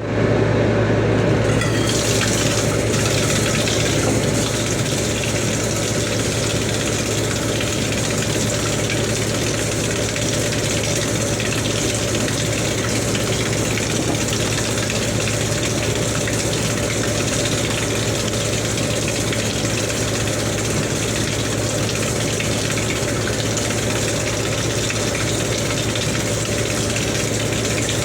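Water running steadily, with a low steady hum under it.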